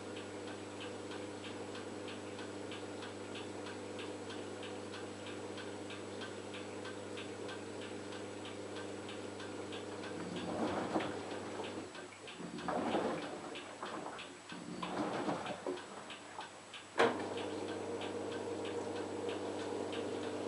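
LG F1443KG washing machine running a wash cycle: a steady motor hum with regular fast ticking, a few ticks a second. About ten seconds in, the hum gives way to three loud rushing swells, then a sharp click near the end and the hum starts again.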